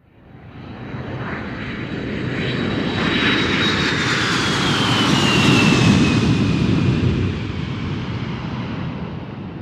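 Airplane fly-by sound effect: the engine noise fades in, swells to a peak about halfway through and fades away again, with a high whine that falls in pitch as the plane passes, over a steady rumble.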